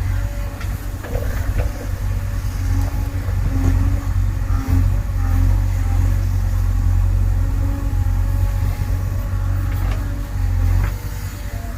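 JCB 3DX backhoe loader's diesel engine running steadily, with a few short knocks over it.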